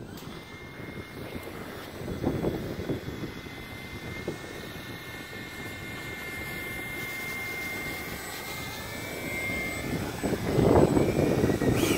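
Electric ducted fan of an RC Eurofighter jet model whining steadily at low taxi throttle over a rough rushing noise. The whine rises a little in pitch near the end, and the sound grows louder as the jet comes up close.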